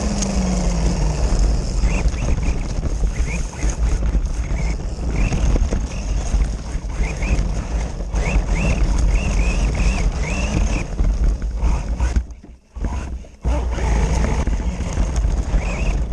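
Radio-controlled car driving over dirt and pavement, heard from a camera mounted on it: motor and drivetrain running, tyres on the ground and wind buffeting the microphone make a steady rumbling noise. The sound briefly drops nearly to silence about twelve seconds in. Short high chirps recur through much of it.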